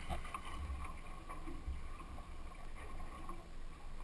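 Water splashing and sloshing against the side of a small fishing boat as a hooked striped marlin thrashes at the surface, with a brief splash right at the start, over a low wind rumble on the microphone.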